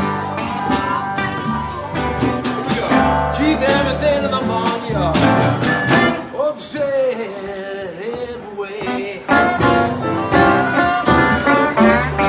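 Live acoustic blues band playing: guitar, banjo, hand drums, drum kit and piano, with a harmonica lead bending its notes. The band thins out in the middle and comes back in full about nine seconds in.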